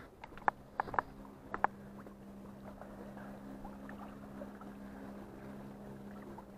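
Motorboat engine humming steadily at one pitch as the boat passes offshore, with a few sharp clicks in the first two seconds.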